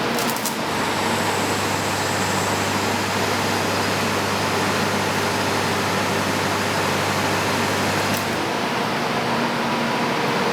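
GT120 flash-butt rail welding machine at work: a loud, steady hiss, with a low electrical hum that comes in about a second in and cuts out a little after eight seconds.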